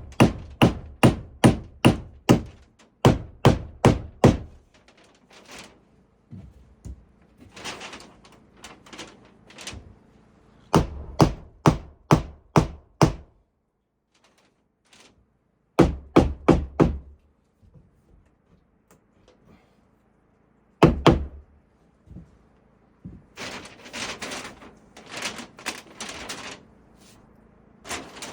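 Hammer blows on wooden framing, in quick runs of five to eight heavy strikes at about three a second, with pauses between runs. Softer clattering and handling of wood follows near the end.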